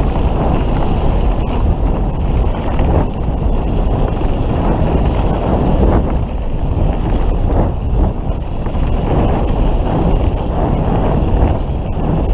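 Wind rushing over the camera microphone during a fast mountain-bike descent, mixed with the knobby Maxxis tyres of a Canyon Spectral full-suspension bike rolling on dirt singletrack. A dense, steady rumble with no break.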